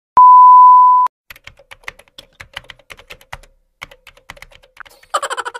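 A loud, steady electronic beep lasting about a second, followed by a keyboard-typing sound effect of irregular clicks, several a second, as on-screen text types itself out. Near the end, quick tinkly music starts.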